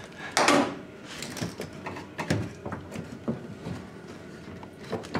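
Hard plastic taillight housing and trim being handled against the car's rear body panel: a loud scrape about half a second in, then a run of light plastic clicks and knocks.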